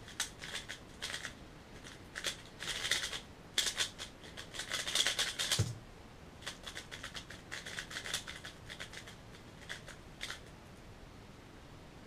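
Valk 3M plastic speed cube turned very fast in a 3x3 speedsolve: a rapid run of clicks and clacks for about five and a half seconds, ending in a soft thump as the solve stops. After a short pause the cube is turned again in slower, sparser runs until about ten seconds in.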